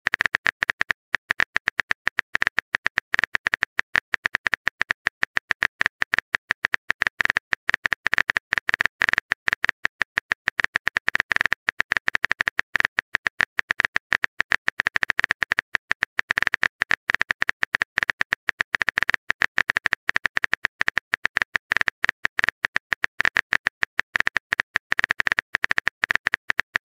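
Keyboard typing sound effect: a rapid, uneven stream of key clicks, many per second, with a few brief pauses.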